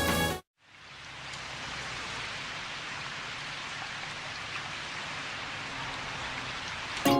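Steady rain-like hiss that fades in just after the music cuts off, with music starting again right at the end.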